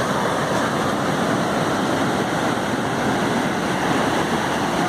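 Ocean surf breaking and washing ashore, a loud, steady rush with no single crash standing out.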